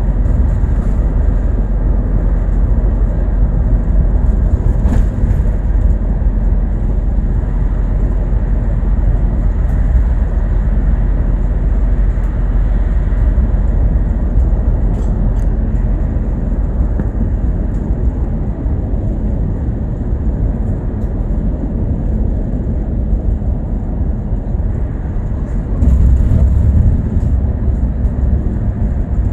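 Bus in motion heard from inside the cabin: a steady low rumble of engine and road noise, with a few faint rattles. The rumble grows louder for a couple of seconds near the end.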